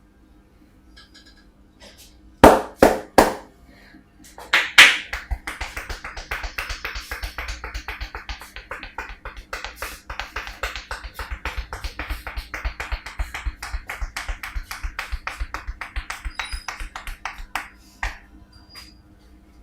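Hands slapping and tapping on a head during an Indian head massage. Three loud slaps come about two and a half seconds in and two more near five seconds. A fast, even patter of about five strokes a second follows and stops about a second and a half before the end.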